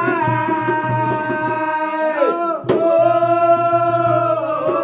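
Male chorus of Oggu Katha folk singers holding long drawn-out notes in two phrases, with a brief sharp click between them a little past halfway.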